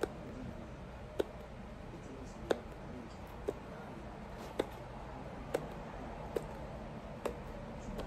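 Small sharp clicks about once a second, coming a little quicker toward the end, as a leather boot's sole edge is worked by hand, over a steady low workshop hum.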